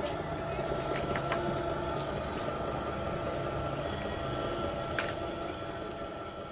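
Small electric screw-type oil press running steadily as it presses almonds into oil, a steady mechanical hum with a few faint clicks.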